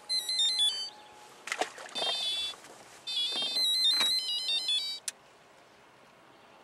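An electronic alert playing a high-pitched jingle of quick stepped beeps, in three bursts: short, shorter, then a longer one of nearly two seconds. A few sharp knocks fall between the bursts.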